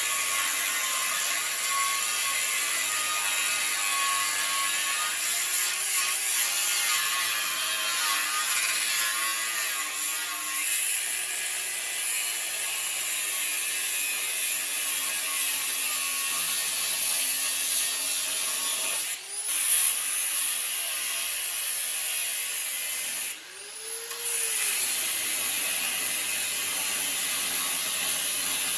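Cutoff wheel cutting through the steel frame rail of a Jeep Wrangler, a steady high-pitched grinding. It stops briefly about two-thirds of the way through, then stops again a few seconds later and spins back up.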